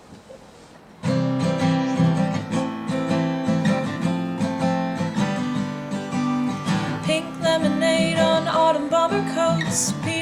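A song's intro on strummed acoustic guitar, starting abruptly about a second in, with a sung melody coming in near the end.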